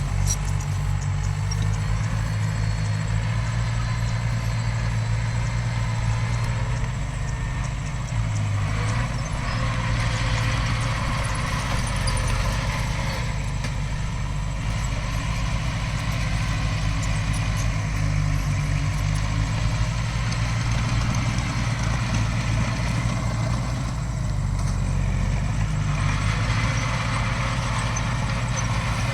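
Heavy diesel engine of earthmoving machinery running steadily, its engine note shifting a few times as it works.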